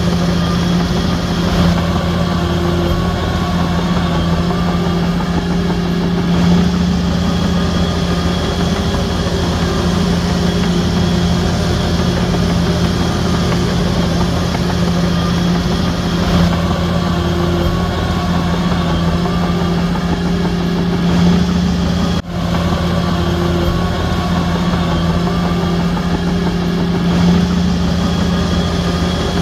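Heavy earthmoving machine's diesel engine running steadily at a constant pitch, with a brief dropout about two-thirds of the way through.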